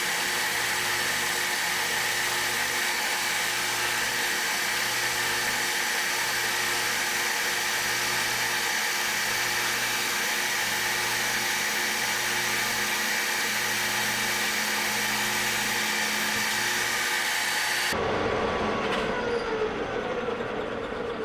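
Metal lathe taking a turning pass on a steel shaft with a carbide insert, heard sped up fourfold: a steady, high machine whine with cutting hiss. About eighteen seconds in it cuts abruptly to quieter real-time sound whose pitch falls away.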